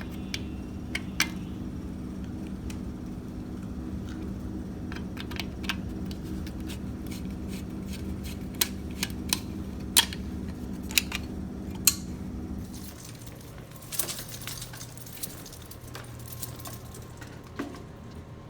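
A steady low mechanical hum that cuts off about thirteen seconds in, with scattered sharp clicks and light metallic jangling throughout.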